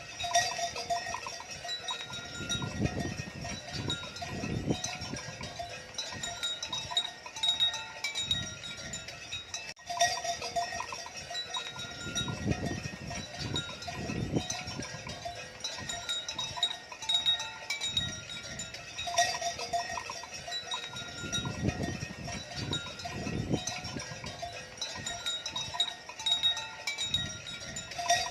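Cattle calling amid clanking livestock bells, the same stretch of sound repeating about every nine seconds.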